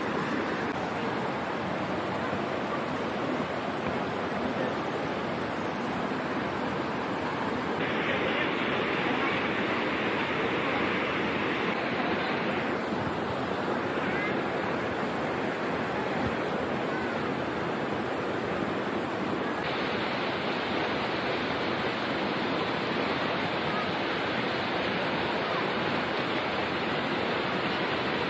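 Shallow rocky river rushing steadily over boulders and small rapids.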